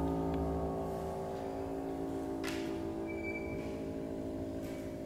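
Grand piano's closing chord held on the sustain pedal, slowly fading away, with a brief rustle about halfway through.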